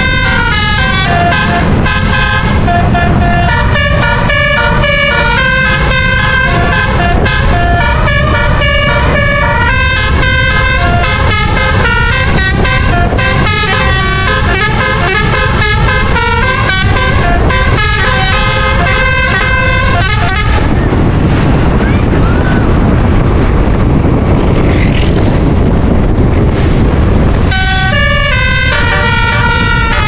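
A bus's 12-trumpet roof-mounted musical air horn (telolet) plays a tune of quick, stepped notes. About two-thirds of the way through it stops for several seconds, leaving only engine and road noise, then starts playing again near the end.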